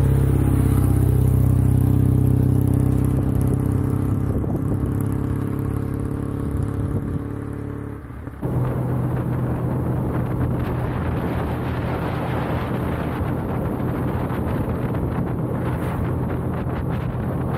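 A motorcycle engine passes close and then fades steadily as the bike rides away over about eight seconds. After a sudden cut, a steady engine hum continues under wind rushing over the microphone while riding.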